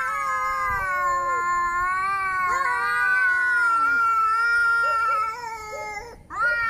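Domestic cat yowling in a long, drawn-out wail that bends slowly in pitch, the drawn-out threatening call of an angry cat. The call breaks off about six seconds in, and another begins right after.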